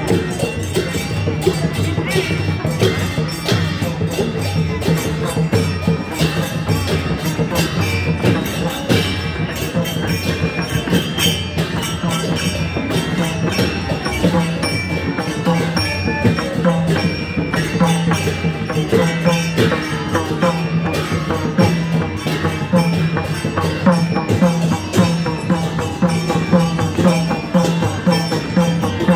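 Traditional Newari folk music with dense, rapid drumming and jingling, ringing percussion over a steady low tone.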